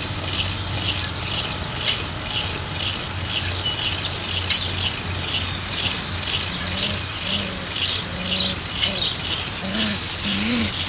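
Four-week-old Alaskan Malamute puppies at play give short cries, starting about halfway through and coming more often toward the end. A high, even chirping repeats two or three times a second in the background.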